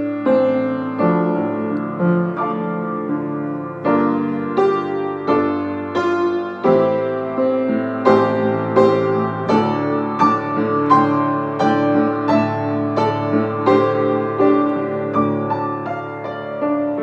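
Instrumental piano music with no singing: notes and chords struck in a steady rhythm.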